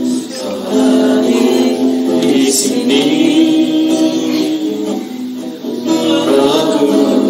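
Worship song: singing over strummed acoustic guitar, with long held, gliding notes.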